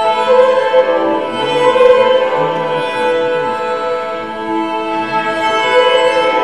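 Instrumental music of long held string notes, violin and cello, shifting slowly from one sustained chord to the next.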